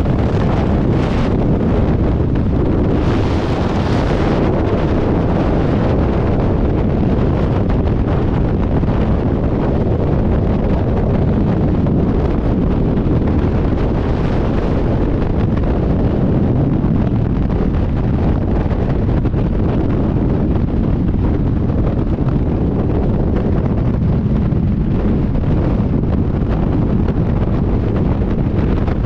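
Freefall airflow blasting over a skydiving camera's microphone: loud, steady wind noise, with a brief hissier surge about three seconds in.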